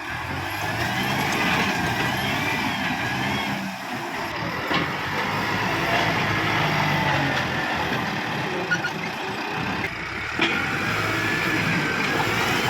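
Kubota MU5501 tractor's diesel engine running steadily under load, with a high wavering squeal over it that rises and falls.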